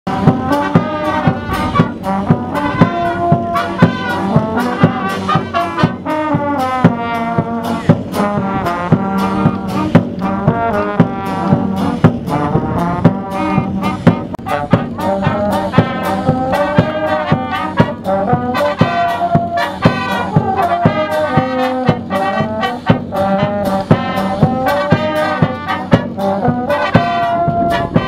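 Small brass band of trumpets, trombones and tubas playing a tune together, with a bass drum keeping a steady beat.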